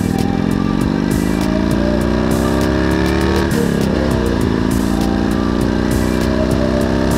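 Motorcycle engine accelerating: its pitch rises steadily, drops sharply at a gear change about three and a half seconds in, then climbs again.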